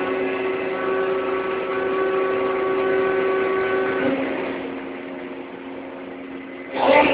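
Ship's crane drive machinery running with a steady hum of several tones. It drops back about four seconds in, then rises sharply in level and pitch near the end as the crane is driven again.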